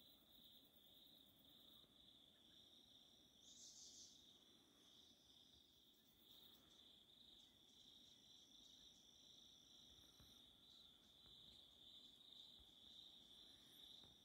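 Faint insect chorus: one insect keeps up a steady high trill while a second, higher one buzzes on and off, with a brief higher burst about three and a half seconds in.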